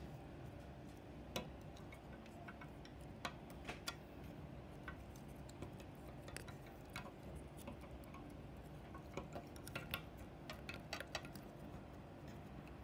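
Small irregular clicks and taps of plastic Lego pieces as hands move and adjust the model's legs and joints, over a faint steady hum.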